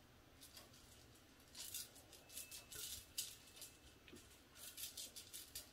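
Faint bursts of quick scratching and rattling as a kitten bats at a feather toy on a coiled wire spring set in a carpet-covered base, the spring wobbling and the feathers rustling. The bursts come in three clusters, in the first half and toward the end.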